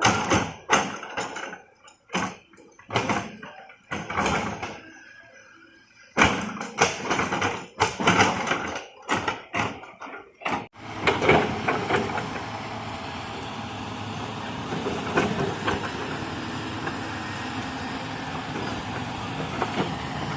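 A series of separate knocks and clanks for about ten seconds, then a heavy machine's engine running steadily.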